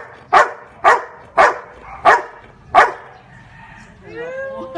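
Yellow Labrador barking five times in a row on cue, counting the number shown on a hand, about one bark every half second or so. Near the end comes a long, drawn-out voiced sound that rises in pitch.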